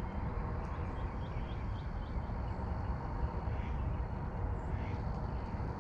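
Outdoor riverside ambience: a low, uneven rumble, with a few faint short high chirps in the first two seconds or so.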